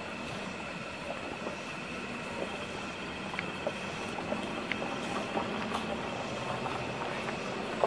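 Vintage passenger coaches rolling past slowly, their steel wheels running on the rails with a steady noise, scattered clicks and a faint steady high ring.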